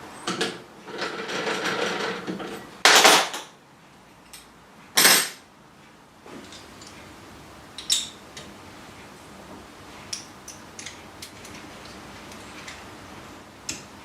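Metal parts handled on a workbench: a scraping rattle, two louder clattering bursts about three and five seconds in, then a few scattered light clicks and taps.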